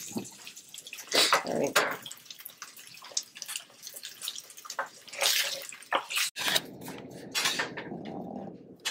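Chicken strips frying in a nonstick skillet, with a run of sharp scrapes and knocks as a utensil stirs them against the pan; the loudest clusters come about a second in and again about five seconds in.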